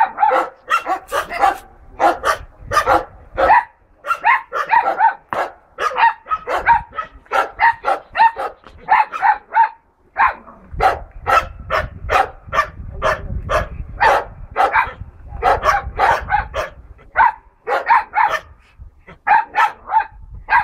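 Red Finnish Spitz dogs barking hard and without let-up, rapid sharp barks several a second, with a brief break about ten seconds in.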